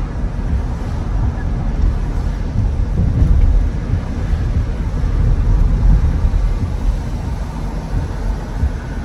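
Car driving along a road: a steady low rumble of road and wind noise, swelling a little in the middle.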